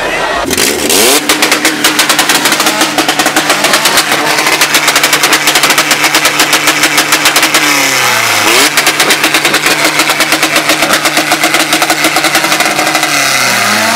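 Car engine held on a two-step launch limiter, revs pinned with a rapid run of sharp pops and crackles. It holds for several seconds, drops and climbs again about halfway through, and holds a second time before letting off near the end.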